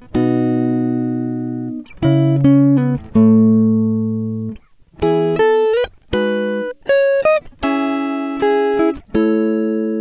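Background music: plucked string chords and short melodic phrases, each note starting sharply and fading, with a few brief slides in pitch.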